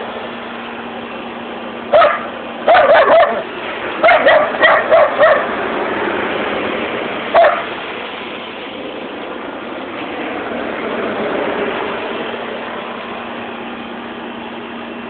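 Border collie barking in short, sharp barks: one about two seconds in, then two quick runs of several barks, and a last single bark about halfway through, over steady background noise.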